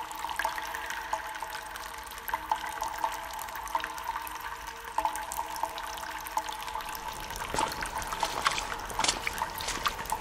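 Cave water ambience: water dripping and trickling, a steady scatter of small drips over a faint steady tone, with a few sharper drips near the end.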